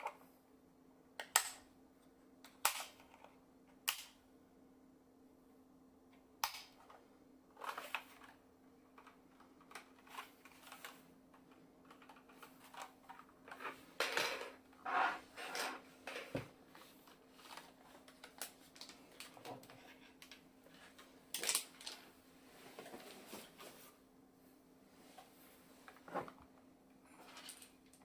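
Irregular sharp clicks and taps with short bouts of scraping and rustling, from a mechanical keyboard and its packaging being handled, over a faint steady hum.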